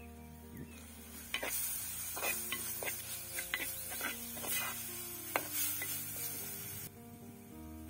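Chopped vegetables and curry leaves sizzling in hot oil in a clay pot, stirred with a wooden spoon that scrapes the pot in several quick strokes. The sizzle starts about a second in and stops about a second before the end.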